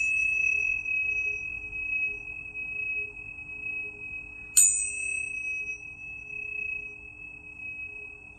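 A tuning fork rings a single pure, high tone that slowly fades. It is struck again about four and a half seconds in, with a sharp metallic ping and brief bright overtones before the steady tone takes over.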